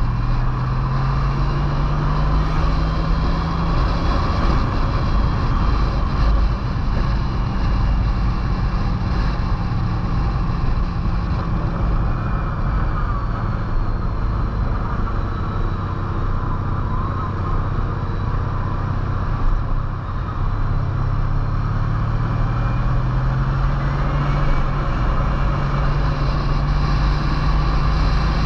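Motorcycle engine running at road speed under a steady rush of wind noise. The engine note climbs in the first few seconds, drops back about five seconds in, and rises again in the last third as the rider works through the curves.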